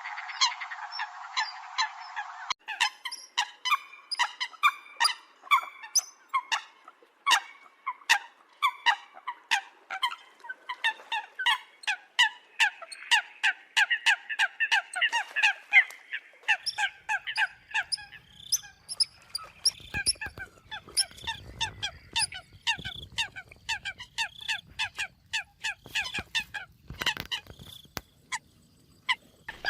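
Eurasian coots calling: a rapid series of short, sharp honking calls, several a second, with a faint low rumble beneath them in the second half.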